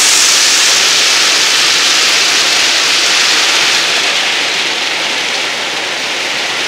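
Hailstorm: hailstones and rain pelting down in a dense, steady hiss that eases a little about four seconds in.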